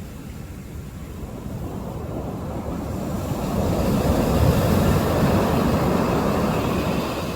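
Sea waves breaking on the shore: a rushing noise that builds over the first few seconds, is loudest through the middle, and eases near the end.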